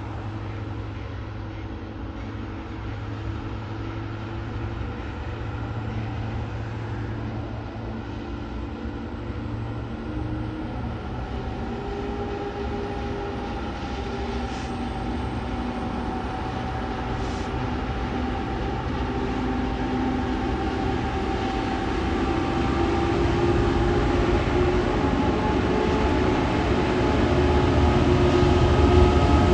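Two TasRail TR-class diesel-electric locomotives hauling a log train, their engines working under load and growing steadily louder as they approach.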